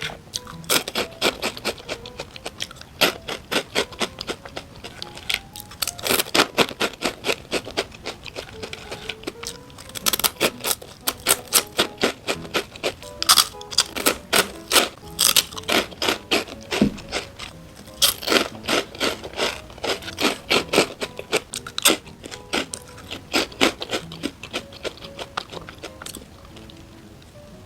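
Close-miked crunching and chewing of crunchy food in rapid clusters, over soft background music; the crunching stops near the end.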